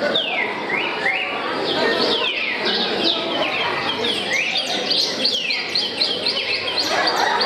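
Birds calling: many short whistled calls that slide down in pitch, repeating several times a second.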